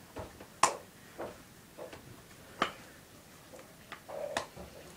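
A lull with a few sharp clicks, about two seconds apart, among fainter ticks, and a short low sound just before the last click.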